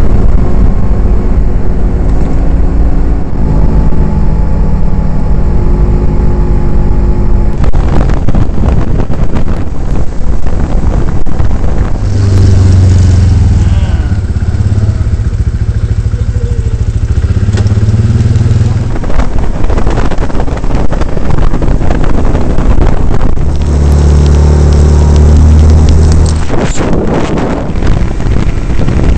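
Quad bike engine running under changing throttle, its note stepping up and down and swelling loud at times, with frequent knocks and buffeting over the top.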